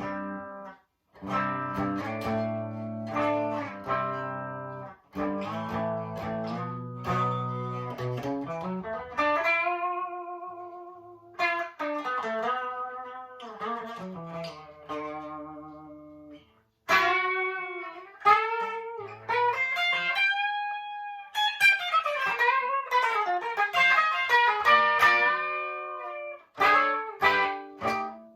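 Electric guitar, a Chibson Les Paul Custom copy played straight into a Marshall DSL40 combo amp on its clean channel. First chords are rung out, then single-note lead lines with string bends.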